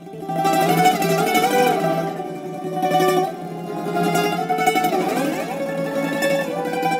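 Greek instrumental music: a plucked bouzouki melody over a sustained low note.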